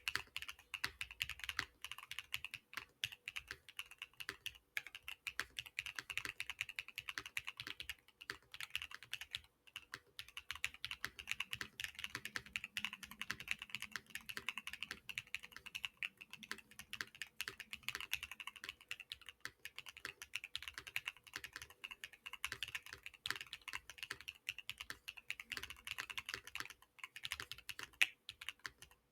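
Steady, fast typing on a Keychron Q6 Max mechanical keyboard fitted with Keygeek Little Ghost linear switches, PBT keycaps, a polycarbonate plate and full foam. The keystrokes run as a dense, continuous stream of clicks with only brief pauses.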